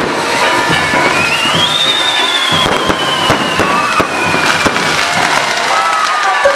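Fireworks going off: dense crackling and popping bursts, with a long whistling tone that rises over the first two seconds and then slowly falls.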